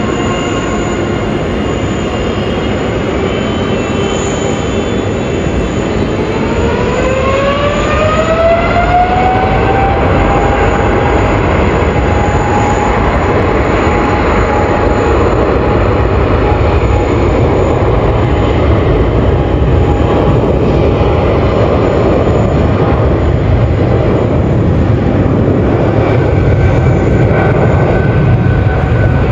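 Boeing 777-300ER's GE90 turbofan engines spooling up for takeoff: a whine rises in pitch over about four seconds, then holds steady over a loud, continuous jet roar as the engines sit at takeoff thrust.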